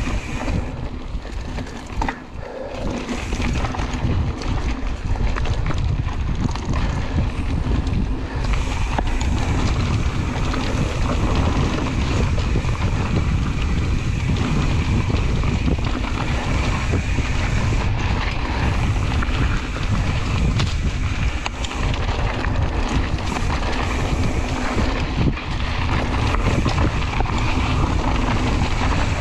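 Mountain bike ridden along a dirt cross-country trail: wind buffeting the microphone over the steady low rumble of the tyres, with a constant patter of small rattles and clicks from the bike.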